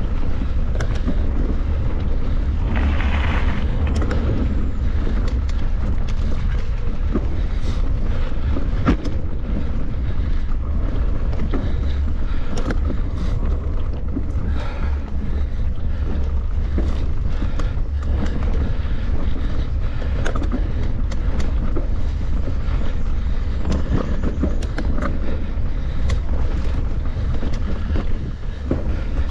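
Wind rumbling steadily on the microphone of a camera carried on a mountain bike ride, with frequent clicks and rattles from the bike. There is a short hiss about three seconds in.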